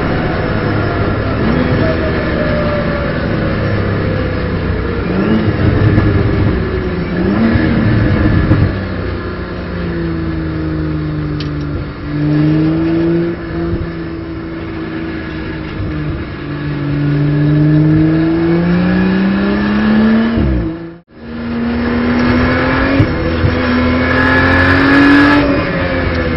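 BMW M240i Racing Cup's turbocharged straight-six heard from inside the cockpit at racing speed. Its pitch falls through downshifts with short throttle blips, then climbs steadily under acceleration and drops at a gear change. The sound cuts out briefly a little after twenty seconds in, then comes back at high revs.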